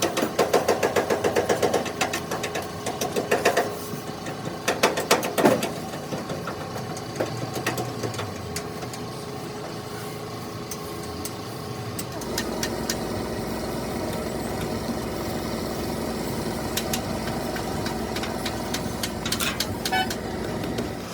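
Workshop clatter with fast rapping for the first couple of seconds and a few sharp knocks, then about twelve seconds in a steady engine hum starts and keeps running.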